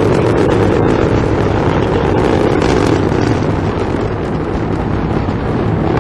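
Delta IV Heavy rocket climbing on full thrust: a loud, steady rumble of engine noise with a crackle running through it.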